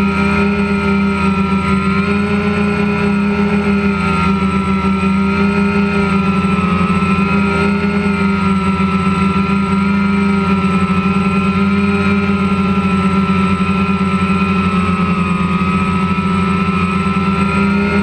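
DJI Phantom quadcopter's motors and propellers running in flight, picked up close by the GoPro mounted on the drone: a loud, steady hum whose pitch wavers slightly as the motors adjust their speed.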